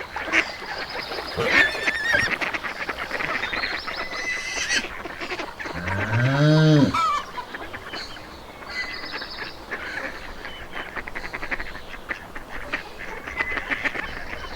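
Farmyard geese and ducks honking and quacking, many calls overlapping. About six seconds in, a single low call from a larger animal rises and falls in pitch for about a second and is the loudest sound.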